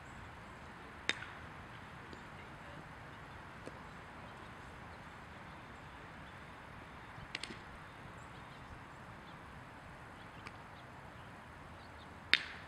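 Outdoor field ambience broken by a few sharp cracks of a bat hitting a baseball during fielding practice: a faint one about a second in, a couple in the middle, and a much louder crack near the end.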